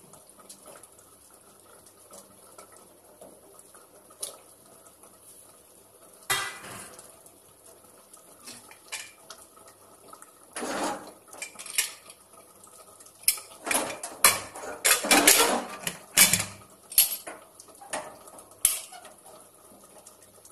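Aluminium pressure cooker lid being put on and closed onto the pot: a single metal clatter about six seconds in, then scattered clanks, and a quick run of loud metal-on-metal clanks and scrapes a little past the middle as the lid is seated and locked.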